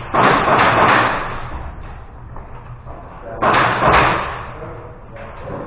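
Two bursts of airsoft gunfire with BBs striking hard surfaces, echoing in an indoor close-quarters building: one right at the start, the other about three and a half seconds in, each cutting in sharply and fading away.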